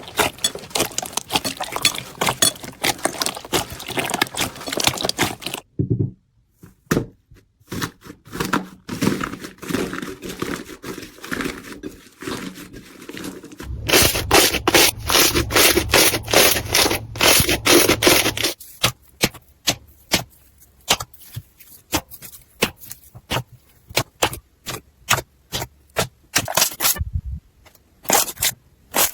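Slime being pressed and worked by hand, giving dense runs of crackling and popping clicks. The texture and loudness change abruptly several times as one batch gives way to another.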